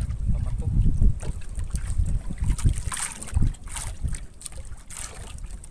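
Gusty wind rumbling on the microphone aboard a small fishing boat at sea, with a few scattered knocks and clatter.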